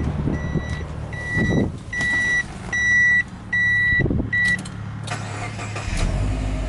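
A car's warning chime beeps six times, a little faster than once a second. The starter then cranks briefly, and the Subaru Impreza WRX STI A-Line's EJ25 turbocharged flat-four catches about six seconds in and settles into a steady low idle.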